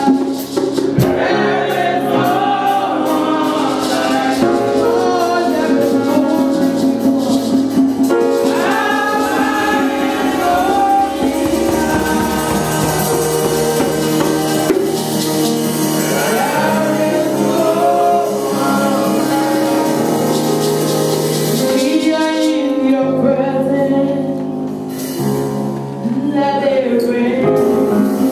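Several women and a man singing a gospel song together into microphones, over steady instrumental backing and light percussion.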